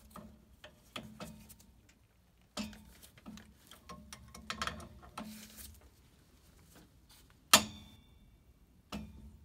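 Irregular metal clicks and knocks as an aluminum-bodied Honeywell gas valve is turned and tightened onto its threaded gas pipe fitting. A sharp metal clank rings briefly about three quarters of the way through, and there is one more knock near the end.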